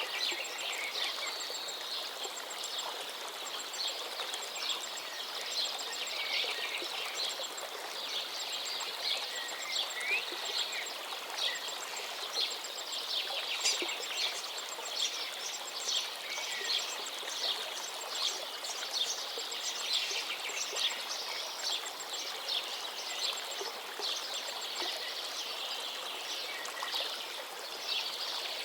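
Songbirds singing, many quick chirps and trills, over the steady rush of a gently flowing forest river.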